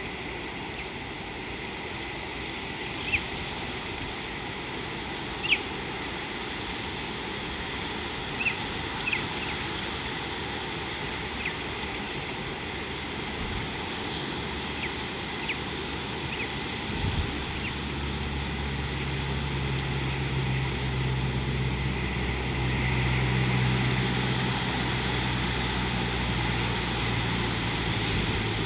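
An insect calling with a short high pulse about once a second over a steady hiss, with scattered brief high chirps. About two-thirds of the way through, a low steady mechanical hum sets in and carries on.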